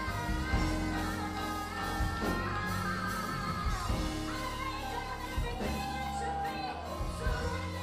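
A song with a singing voice over a band backing of bass and drums.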